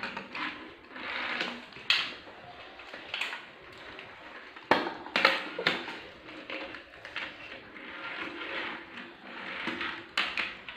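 Children eating deep-fried chicken: crackly crunching and handling of the food, with several sharp clicks as fingers and chicken knock against the steel plate and sauce bowls.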